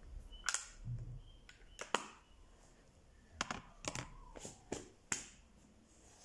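Makeup products being handled: about eight sharp, irregular clicks and taps of plastic cases, with an eyeshadow palette being closed.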